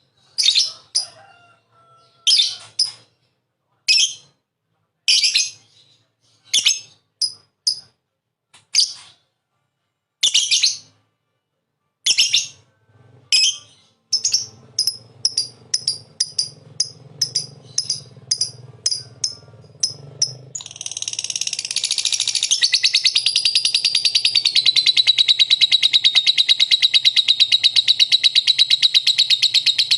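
Lovebird calling: sharp, high, separate chirps that come faster and faster, then about twenty seconds in run together into one long, loud, rapid trill.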